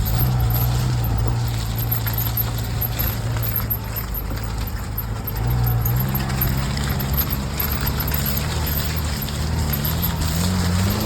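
Maruti Gypsy's engine running steadily while the jeep is driven off-road, with the body and loose parts clattering throughout. The engine pitch climbs over the last few seconds as it revs up.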